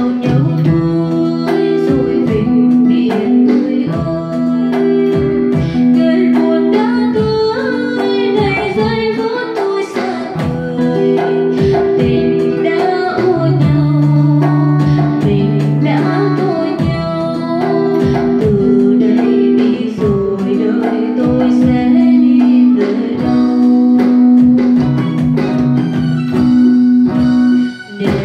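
A woman singing a Vietnamese bolero into a microphone, holding long notes. She is backed by an acoustic guitar, a Roland BK-5 arranger keyboard and an electronic percussion pad struck with sticks, which keep a steady beat.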